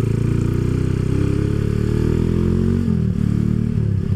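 Honda CB motorcycle engine running while riding. The engine note holds steady, drops about three seconds in as the throttle eases, then picks up again.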